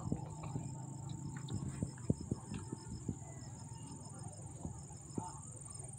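Crickets chirping at night: a steady high trill with an evenly pulsed chirp over it. Scattered soft knocks and clicks sound through it.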